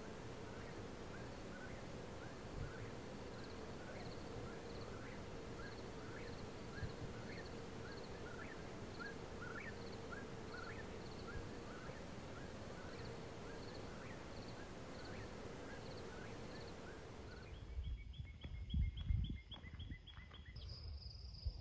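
Outdoor evening ambience: a steady hiss and low hum with many small chirps repeating about twice a second. Near the end the sound changes: a few low thumps, then crickets chirping.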